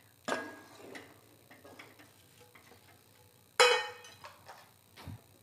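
A spoon knocking and scraping against metal cookware. There is a sharp clink with brief ringing just after the start, faint ticks in between, and a louder ringing clink a little past halfway.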